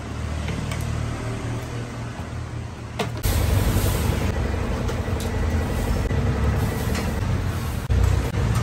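Steady low rumble of gas stove burners, with a few light knocks of kitchen utensils against metal; about three seconds in the rumble steps up louder.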